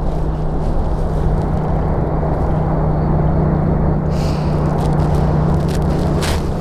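Steady rumble of road traffic on a nearby bridge, with a constant low hum; a higher tyre hiss joins about four seconds in.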